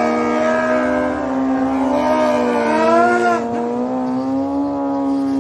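Motorcycle engine held at high, nearly steady revs, its pitch wavering slightly with a brief rise and dip about three seconds in.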